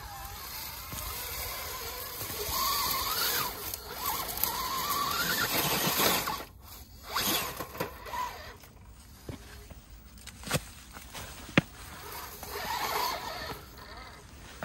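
Fusion Pro 2300kv brushless motor of an Axial SCX10 Pro RC rock crawler whining, rising in pitch twice as the throttle is pulled on the climb. Tyres scrape on rock, and a sharp click comes near the end.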